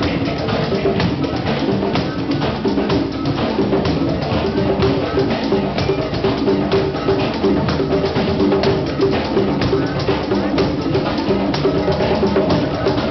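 Drum circle: congas and hand-held frame drums struck by hand together in a dense, steady rhythm.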